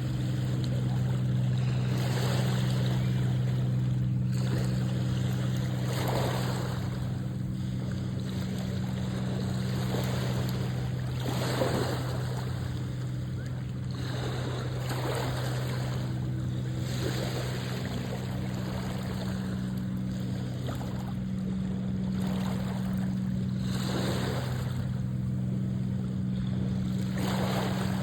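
A ship's engine hums steadily under way while water rushes and splashes along the hull, swelling and fading every couple of seconds.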